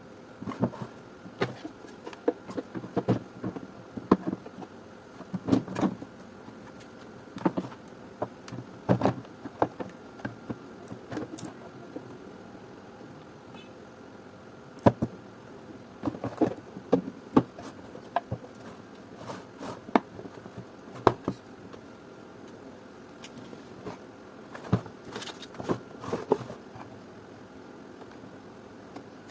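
Irregular clicks, taps and knocks of hard parts being handled and worked on during the repair of a Philips GC520 garment steamer, some in quick clusters and some alone.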